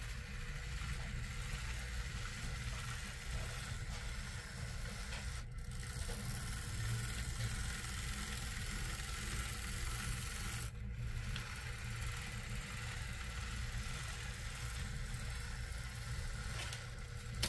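Athearn Blue Box model locomotive running on track under its newly fitted DCC decoder: a steady motor hum with the rattle of gears and wheels on rail. The sound dips briefly twice, about five and eleven seconds in.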